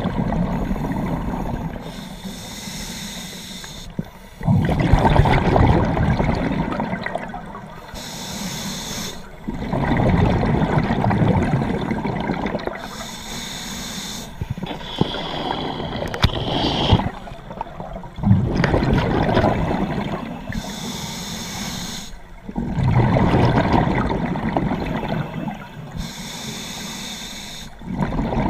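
A scuba diver breathing through a regulator underwater: a short hissing inhale, then a loud bubbling rumble of exhaled air, repeating about every five seconds.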